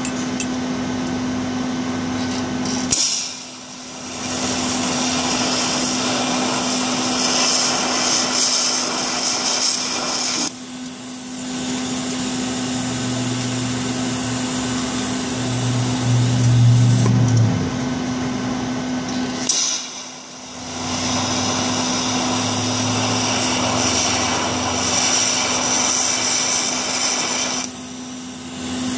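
TIG welder at work: a steady hissing rush over a constant low hum. It drops away briefly about three seconds in, again at about ten and twenty seconds, and near the end.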